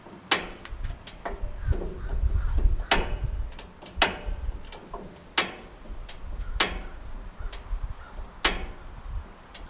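Gas grill's igniter clicking over and over, a dozen or so sharp clicks at uneven intervals of about a second, without the burner catching: the grill won't light, which is put down to gas not reaching the burner or the tank being empty. A low rumble runs under the clicks.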